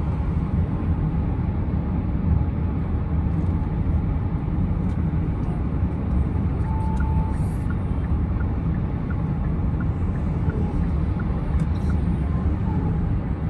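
Car cabin road noise while driving: the steady low rumble of the engine and tyres heard from inside the car. A short beep sounds about seven seconds in, and faint regular ticks follow through the second half.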